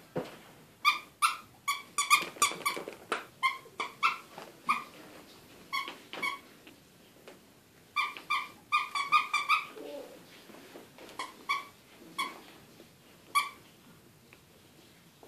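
A squeaker in a soft toy squeezed again and again: short high squeaks, all at the same pitch, often several in quick succession, thinning out near the end.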